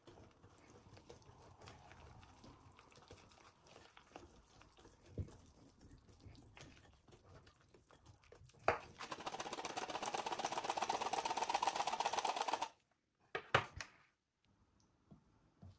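Wire whisk beating wet batter in a glass bowl: soft stirring at first, then about four seconds of fast, rapid whisking strokes that stop abruptly, followed by a few light knocks.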